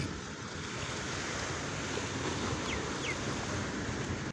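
Sea surf washing steadily on a shore, with two short high bird chirps about three seconds in.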